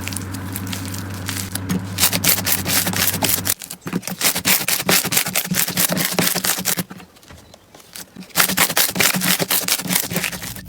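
Slime being worked by hand, making dense crackling and popping, with two brief pauses. A low steady hum sounds under the first few seconds and stops about three and a half seconds in.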